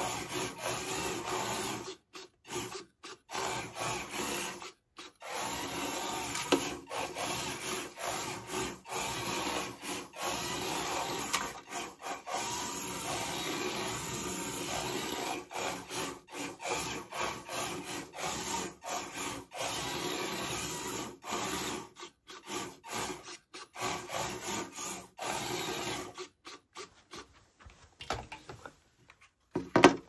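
Small antweight combat robot's geared drive motors whirring as it drives across a wooden arena floor, stopping and starting many times in short bursts, with wheels scrubbing on the wood. There are a few sharp knocks, the loudest near the end.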